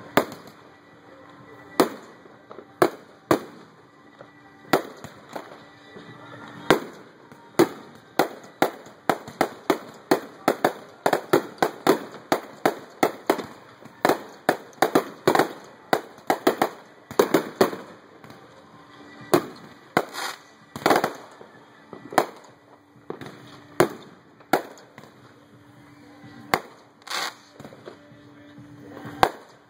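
Aerial fireworks bursting in a string of sharp bangs: a few seconds apart at first, then rapid volleys in the middle, then thinning out again toward the end.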